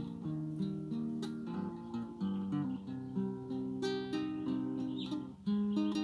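Acoustic guitar played as an improvisation: a flowing run of plucked single notes and chords, with occasional strums.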